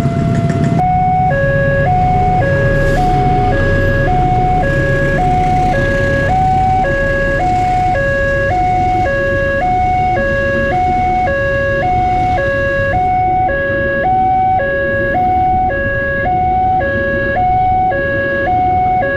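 Electronic level-crossing warning alarm sounding two tones, a higher and a lower, alternating about once a second, over the low rumble of a passenger train passing the crossing.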